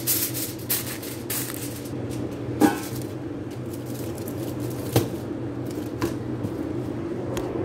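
Aluminium foil crinkling as it is pressed over the rim of a cooking pot to seal it. A metal pot lid is then set down on it with one sharp ringing clank about two and a half seconds in, and a lighter knock follows near five seconds, over a steady low hum.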